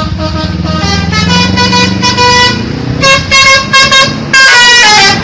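Multi-tone 'telolet' bus horn playing a melody of stepped notes: several held notes, then a quick run of short toots about three seconds in, and a long loud note near the end. An engine runs low underneath during the first half.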